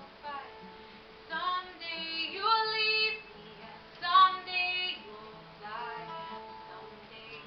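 A woman singing while playing an acoustic guitar. Her voice is loudest in two phrases, starting about one second and about four seconds in, over the guitar's steady low notes.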